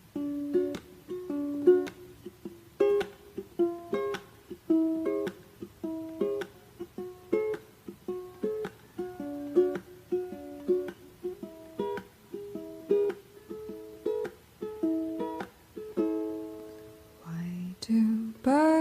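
Background music: a repeating melody of single notes plucked on strings. A singing voice slides in near the end.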